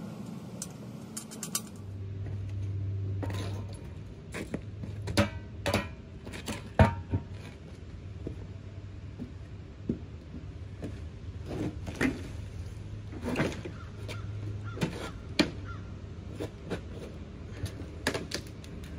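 Steel gantry-crane parts and hardware clinking and knocking as they are handled and fitted together, with scattered sharp metallic clanks, over a steady low hum.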